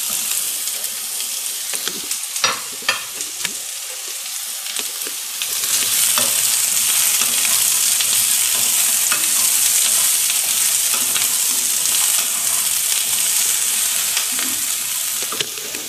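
Chopped vegetables and onion sizzling in hot ghee in a nonstick kadai while a wooden spoon stirs them. A few sharp knocks come in the first three seconds, and the sizzle grows louder about five seconds in as the stirring gets going.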